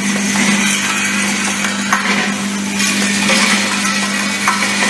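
Automatic hook attachment welding machine for wire hangers running: a steady hum under a continuous mechanical rattle, with a sharp metallic click about two seconds in and another near the end.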